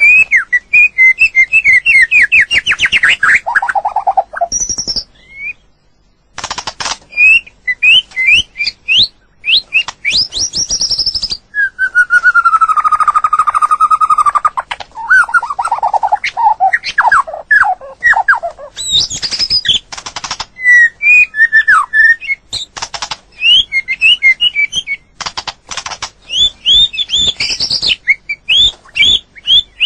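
White-rumped shama singing: a loud, varied stream of clear whistled phrases and quick runs of notes, with one long drawn-out sliding whistle in the middle and sharp clicks between phrases.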